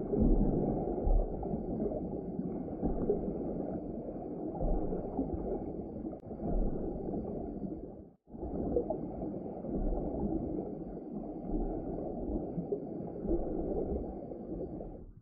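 Muffled rushing of water heard by an underwater camera, with irregular low thumps. The sound cuts out for an instant about eight seconds in, then carries on.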